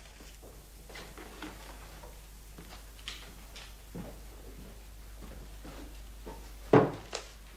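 Scattered light knocks and small handling noises in a quiet room, then one loud thump about seven seconds in.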